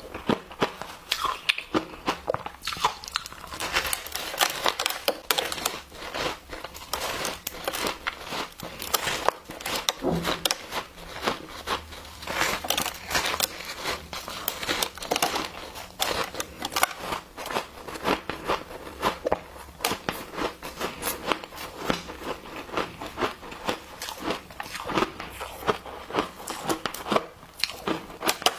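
Close-up crunching of a block of packed, snow-like ice as it is bitten and chewed: a dense, continuous run of crisp crackles.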